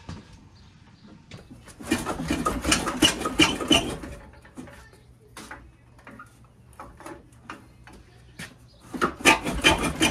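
Metal clattering and scraping of a floor jack and a VW Beetle engine as the engine is worked out of the car: a burst of dense, rapid clattering about two seconds in, another near the end, and scattered knocks between.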